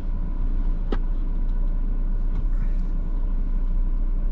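Car engine and road rumble heard from inside the cabin while driving slowly, a steady low drone, with a single sharp click about a second in.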